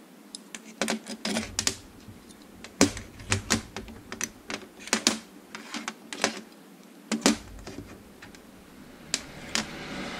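Steel parts of a Kant-Twist clamp and knurling tool clicking and clinking as they are taken apart by hand and set down on a tray: irregular sharp clicks, often several in quick succession.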